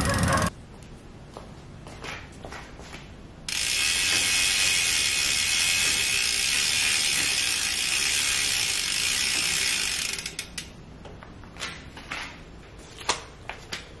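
Novatec D042SB rear hub freewheeling, its three-pawl ratchet clicking. A few scattered clicks first, then a fast, dense buzz for about six seconds that thins out into slower, separate clicks as the wheel slows.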